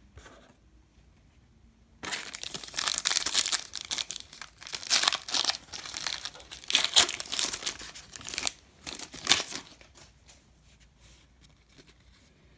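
Wrapper of a Panini Diamond Kings baseball-card pack being torn open and crinkled by hand, a dense crackling that starts about two seconds in and dies down after about nine seconds.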